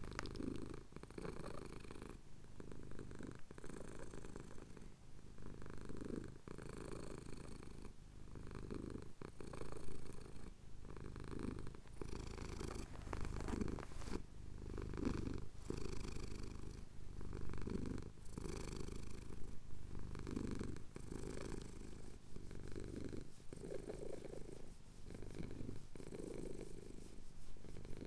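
Domestic cat purring while having his chin scratched, the purr swelling and easing with each breath about every second and a half.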